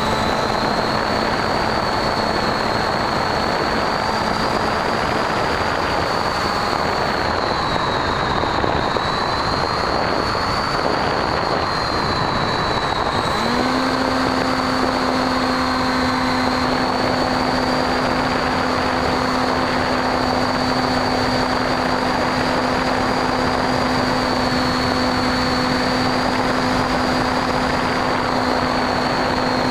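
Electric motor and propeller of a Bixler foam model plane in flight, heard from its onboard camera: a high motor whine that wavers slightly in pitch over a steady rush of wind and propeller noise. About 13 seconds in, a lower hum steps up in pitch and holds there.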